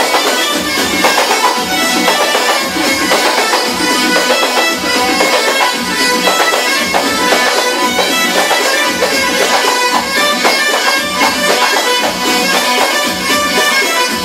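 Live band music with a reedy wind-instrument lead over a steady drum beat.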